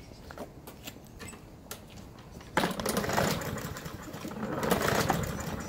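A small motor starts abruptly about two and a half seconds in and runs loud and unevenly, its level rising and falling.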